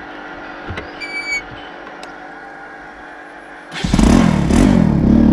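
Bajaj Pulsar NS200 single-cylinder motorcycle engine cuts in suddenly about four seconds in and runs loudly, its pitch rising and falling with a blip of the throttle. Before that there is a quieter steady background with a short high chirp about a second in.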